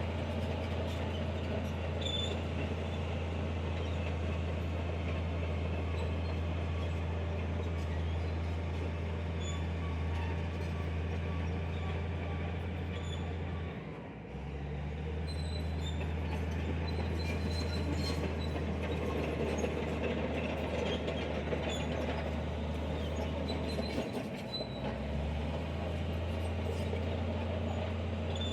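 Heavy diesel earthmoving machine, a bulldozer at work in sand, running steadily under load with a deep engine drone. The engine note dips briefly and picks back up twice, about halfway through and again near the end, and faint high squeaks come and go over it.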